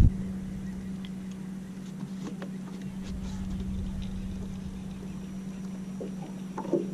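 A steady low hum, with a few faint ticks and a brief faint voice near the end.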